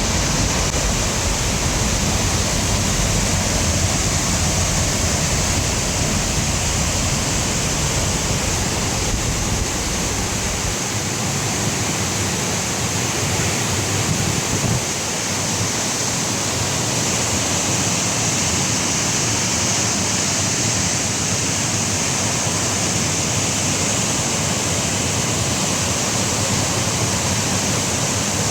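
Ouzoud Falls, a large waterfall, making a steady, loud rush of falling water. A deep low rumble underneath drops away about eleven seconds in.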